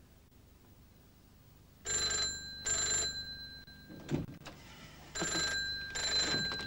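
Desk dial telephone's bell ringing in the double-ring pattern: two pairs of rings, the first about two seconds in and the second about five seconds in, with a short thud between the pairs.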